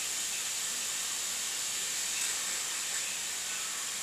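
A steady, even hiss with no clear events in it.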